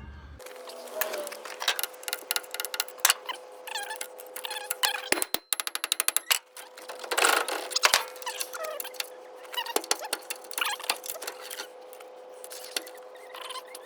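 Hand tools clicking, knocking and scraping on metal while working a seized wheel hub apart. There is a quick run of ratchet-like clicks about five seconds in and a faint steady hum throughout.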